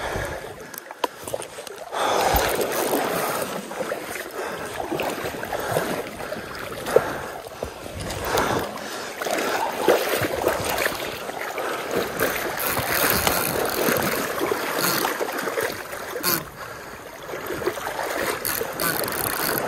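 Stream water rushing and splashing close by as an angler wades, with the clicking of a spinning reel being cranked in against a hooked fish.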